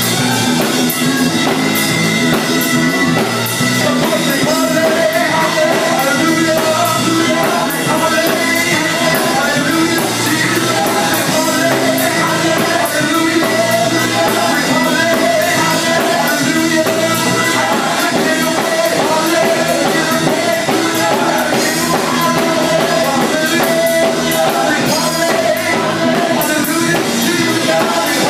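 Gospel group singing live into microphones with instrumental backing, loud and continuous.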